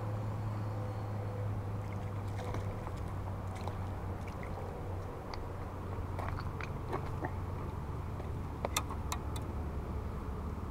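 Steady low rumble of wind on the microphone, with scattered small clicks and knocks and a quick run of sharper clicks about nine seconds in.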